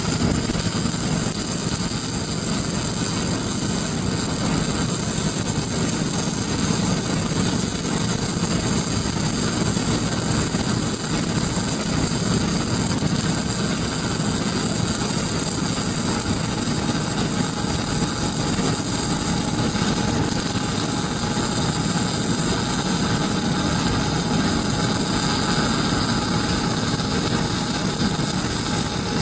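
CO2 gas-shielded wire welding arc crackling steadily, with no break.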